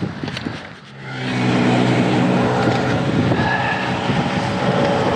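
A motor vehicle's engine comes up loud from about a second in and keeps running steadily close by, with an even engine hum.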